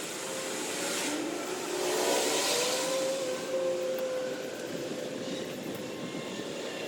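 A motor vehicle passing by: a steady engine hum with tyre noise that swells about two seconds in and slowly fades.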